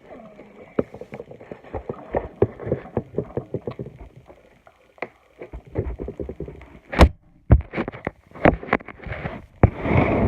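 Slime being squeezed and poked by hand, giving a run of irregular sticky pops and clicks as air pockets burst, with a few sharper pops in the second half.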